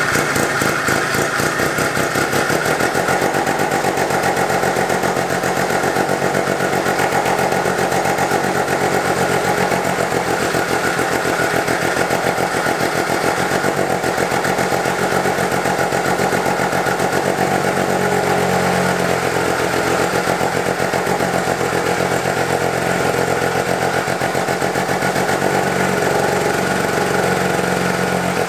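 1971 Arctic Cat Panther's 303 Wankel rotary engine running steadily while fuel is fed by hand into the intake. It doesn't sound like it's hitting quite right, which the owner thinks could be a bad apex seal.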